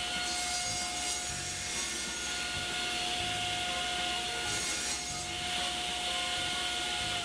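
Table saw running at full speed with a steady whine while its blade cuts an angled edge off a wooden piece pushed through on a clamped jig, the rasp of the cut rising and falling over the motor tone.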